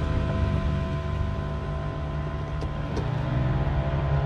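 A steady low droning hum with a few faint clicks.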